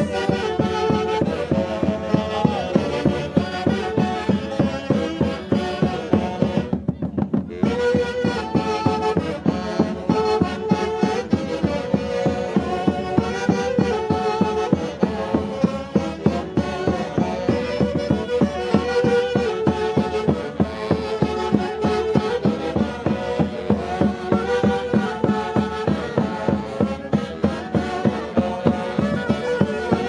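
A live Peruvian Andean orchestra playing Santiago festival music, with an even, driving beat under a melody on several instruments. The upper parts drop out for a moment about seven seconds in, then the music carries on.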